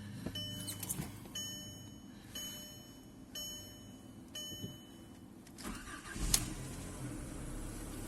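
A car's warning chime beeps about once a second, then the Skoda Fabia 1.4 MPI's four-cylinder petrol engine is cranked and catches about six seconds in, settling into a steady cold-start idle.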